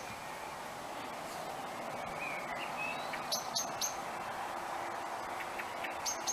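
Wild birds chirping: short, high, quick notes in brief runs, a cluster about three seconds in and another near the end, over a faint steady background hiss.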